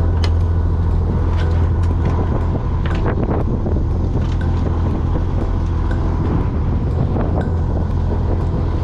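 A fishing boat's engine running steadily with a deep, constant hum, with a few scattered light clicks and knocks from work on the deck.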